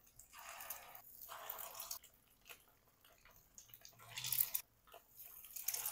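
Egg-dipped chicken koftas frying in a pan of oil: a faint sizzle that flares up several times for about a second at a time as each kofta goes into the oil.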